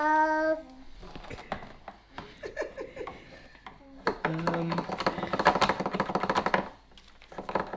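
Light irregular clicks and taps of a screwdriver and fittings on a flat-pack furniture panel during assembly, turning into a dense run of rapid clicking about four seconds in.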